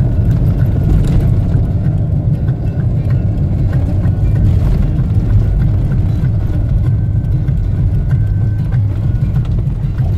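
Steady low rumble of engine and tyre noise inside the cabin of a 4x4 driving along a road.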